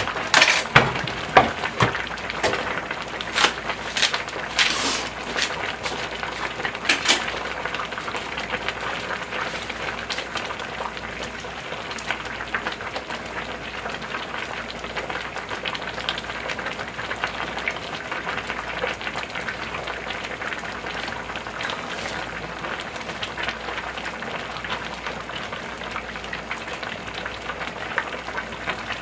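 Two big stainless-steel stockpots of pork-bone and dried radish-greens stew boiling on the stove: a steady bubbling crackle, with louder pops in the first several seconds.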